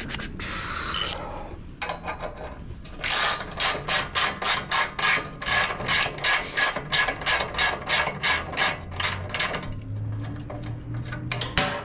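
Hand ratchet clicking as it is worked back and forth to loosen a bolt: a few scattered clicks, then a rapid, even run of clicks, about four or five a second, lasting some six seconds.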